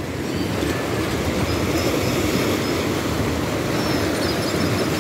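Steady low rushing of waves washing against a concrete boat ramp and rocks, mixed with wind buffeting the microphone. A few faint high chirps sound over it.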